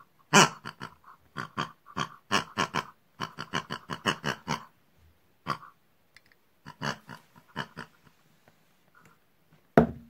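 Pig-like grunts and oinks voiced for toy pigs: quick runs of short snorting grunts, thick for the first half, then scattered, with a louder burst at the end.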